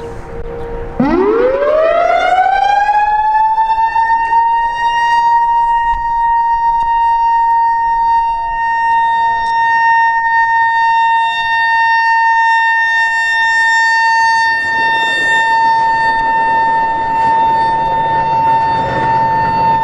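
EOWS 612 electromechanical warning siren winding up about a second in and settling into a loud, steady single tone for its Alert test. Only its high tone is sounding because the low tone has failed to engage, a fault this siren has shown before.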